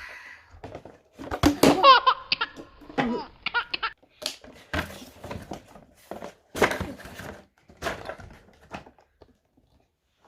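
A child laughing and squealing for about two seconds, followed by a run of short rustles and clicks from toy packaging being handled.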